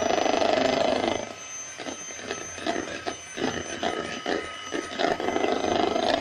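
Electric hand mixer running, its twin beaters whisking a raw egg in a plastic bowl. Loud and steady for the first second or so, then quieter and choppy with quick knocks through the middle, and loud and steady again near the end.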